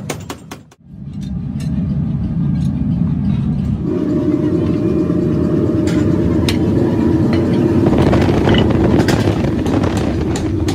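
Steady low rumble of forge-shop machinery running, with a few scattered metallic clinks. It starts under a second in and grows louder about four seconds in.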